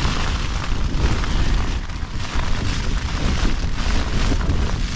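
Heavy rain hammering on a tent in a storm, with strong wind gusts buffeting it: a dense hiss over a heavy low rumble.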